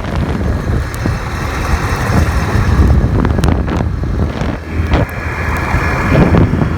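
ATV (four-wheeler) engine running while being ridden, a steady low rumble with scattered knocks from the ride.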